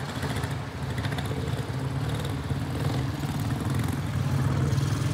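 Several quarter midget race cars' small single-cylinder Briggs & Stratton Animal engines running together in a steady, droning buzz.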